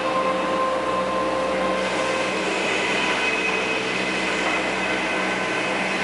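Sawmill machinery running steadily, a loud mechanical din with several high whining tones that shift about two seconds in.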